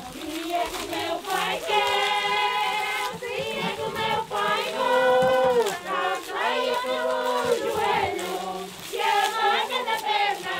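A group of voices singing a traditional Portuguese folk song in chorus, with long held notes that slide down at their ends.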